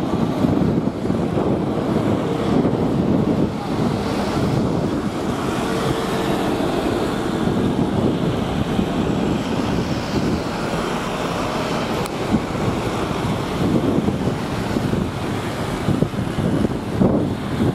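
Jet engines of a Boeing 777-300 at takeoff thrust during its takeoff roll: a steady, even rush of engine noise, mixed with wind on the microphone.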